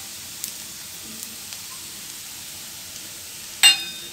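Okra and onions frying in a pan with a steady sizzle. Near the end comes a sharp metallic clink that rings briefly.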